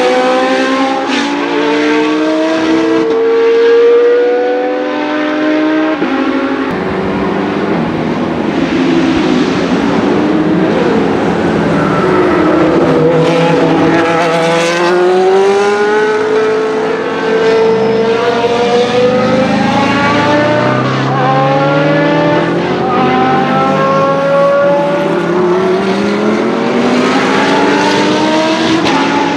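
Racing car engines at full song on a circuit, revving up through the gears again and again, each rising pitch broken off by a shift. Among them is the 1983 Williams FW08C's Ford Cosworth DFY V8.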